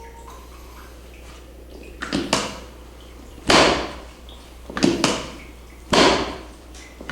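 Knocking in a repeating pattern: two quick, lighter knocks, then a single heavier thump about a second later. The pattern comes twice, about two and a half seconds apart.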